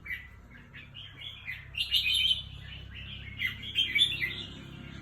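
Red-whiskered bulbul singing in short bright chirping phrases, the loudest coming about two seconds in and again near four seconds, over a faint steady low hum.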